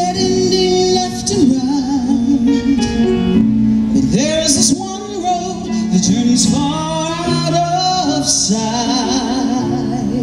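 A woman singing live into a microphone with instrumental accompaniment, her held notes wavering with vibrato.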